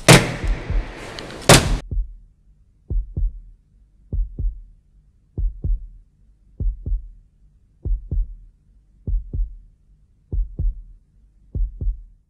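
A slow, steady heartbeat: a low lub-dub double thump about every 1.2 seconds, starting about three seconds in. Before it, two loud sharp cracks over a hiss, which cut off suddenly about two seconds in.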